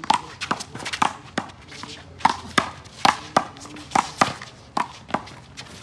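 One-wall handball rally: the small rubber ball smacked by open hands and slapping against the wall and court, in a quick run of sharp smacks two or three a second.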